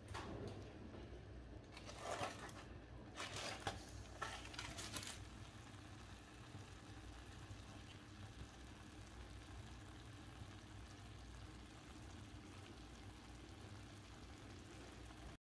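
Aluminium foil crinkling in a few short rustling bursts as it is peeled off a clay pot, over a faint steady low hum.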